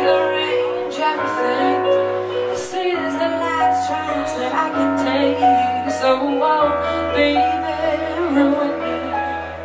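A woman singing live over keyboard accompaniment, with held bass notes that shift every couple of seconds.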